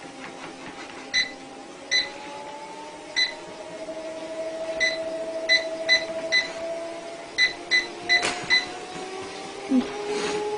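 Treadmill's control panel beeping about a dozen times as its buttons are pressed, some beeps in quick runs, over the hum of the treadmill motor, whose whine slowly rises in pitch as the belt speed is raised.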